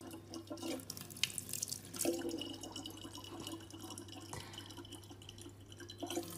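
Thin stream of water from a faucet falling into a plastic water bottle: a faint, steady trickle with small splashes.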